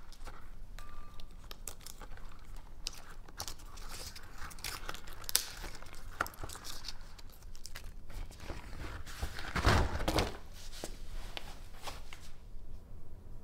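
Walnut shells and dried husk being picked and broken apart by hand: irregular small cracks, crackles and crinkles of shell fragments, with one louder crunch about two-thirds of the way through.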